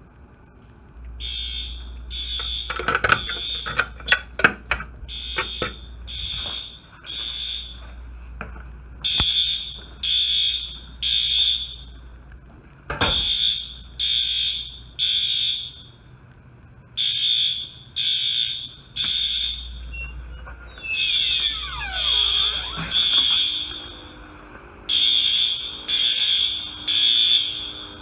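Wheelock AS fire alarm horns sounding in the temporal-three evacuation pattern, three short blasts then a pause, repeating, after a manual pull station is activated; the horns start about a second in. A few sharp knocks come between the first blasts.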